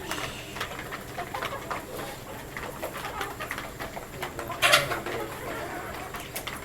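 Backyard flock of birds calling and pecking: scattered short calls and clicks throughout, with one loud, short burst of sound a little over halfway through.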